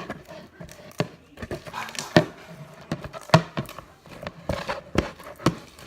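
Hands kneading and squishing homemade slime, making irregular sticky squelches and sharp clicking pops, a few each second.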